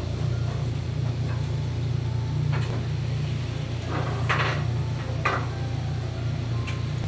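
A flat metal blade scraping and tapping as grilled eel is slid off it into a plastic takeout box: a few short scrapes and clicks in the middle, over a steady low hum.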